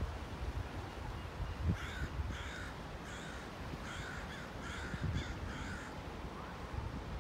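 A bird calling: a quick run of short repeated calls starting about two seconds in and lasting about four seconds, over wind rumbling on the microphone.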